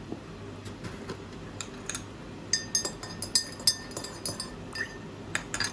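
Irregular sharp clinks and pings, several ringing briefly at the same few high pitches, over a steady hiss; they come thicker from about halfway through.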